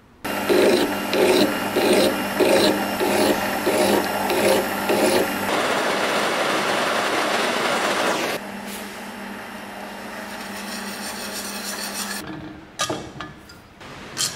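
Rhythmic scraping strokes, about one and a half a second, for the first five seconds, then the steady hiss of a gas blowtorch flame heating a steel screw. A few sharp clicks near the end.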